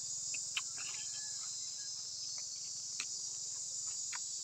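Steady high-pitched insect chorus, crickets or cicadas, with a few faint clicks of chewing mouth sounds.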